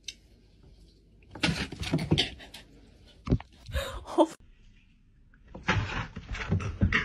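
Scuffling, knocks and rustling in bursts as a long-haired cat lunges at its owner and the phone is jostled, with a sharp knock about three seconds in.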